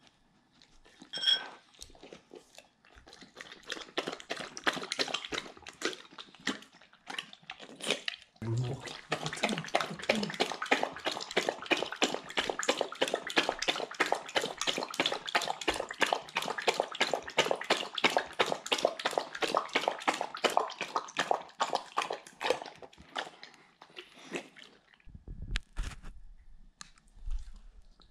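A Doberman licking at empty plates with scattered wet licks and a short clink of a dish about a second in, then lapping water from a glass bowl in a steady, rapid run of laps at about four a second for some fifteen seconds before stopping.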